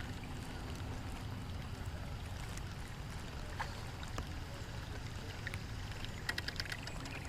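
Steady low rumble of wind and water around a small fishing boat, with a few light clicks and then a quick run of sharp clicks near the end.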